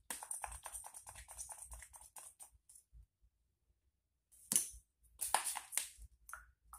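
Wet n Wild setting spray's pump mister spritzed over and over, a quick run of short hissing sprays in the first couple of seconds, then a gap and a few more sprays after the middle.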